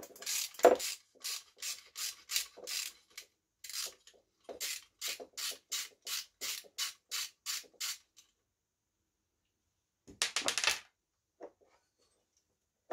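Ratchet with a 7 mm socket clicking in short rasping strokes, about three a second, as it loosens a nut. The strokes stop about eight seconds in, and a quicker run of clicks follows near ten seconds.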